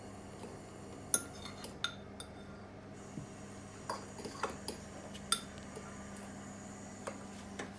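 A utensil clinking and tapping against a bowl while the omelette mixture is stirred: about ten sharp, irregular clinks, the loudest about a second in.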